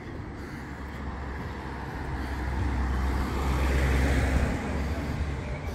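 Road traffic: a motor vehicle passing close by on the street, its engine rumble and tyre noise swelling to a peak about four seconds in and then easing.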